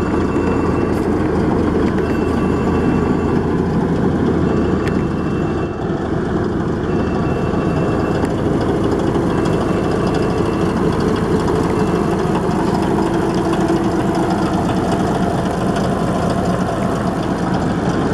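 Caterpillar D9H crawler dozer's diesel engine running steadily, heard close up beside the machine.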